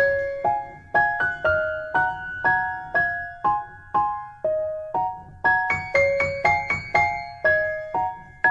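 Background music: a gentle melody of single piano-like keyboard notes, each struck and fading, over a soft low bass.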